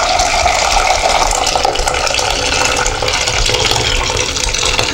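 Hot curdled milk being poured from a pan into a sieve: a steady splashing pour of liquid as the whey is strained off the curds.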